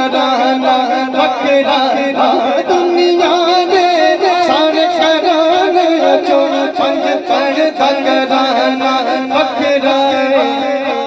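Male voice singing a naat in a long, wavering melismatic line over a steady low drone.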